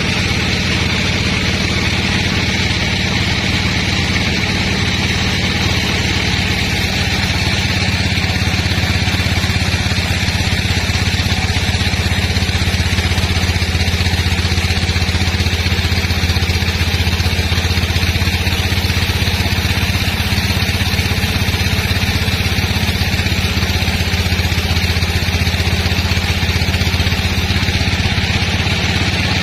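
Sawmill engine running steadily with a deep, even hum and a fainter high whine above it.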